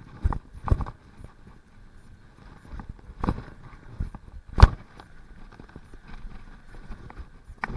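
Mountain bike ridden fast over a dirt trail, heard through a handlebar-mounted camera: a rattling rumble from the tyres and frame, broken by sharp knocks as the bike hits bumps, the loudest a little after halfway.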